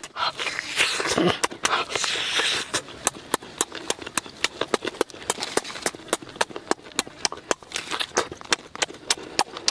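Loud, wet chewing and lip-smacking while eating roasted chicken with the hands, with sharp smacks several times a second.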